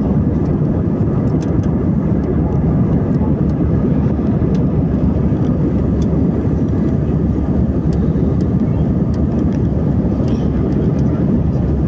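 Airliner's engines running at takeoff power: a steady, loud, low noise that does not let up.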